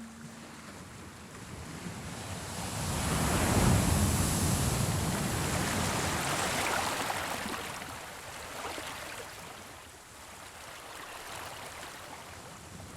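Ocean waves on a shore: a wave surges in, loudest about four seconds in, and washes back out, followed by softer surf.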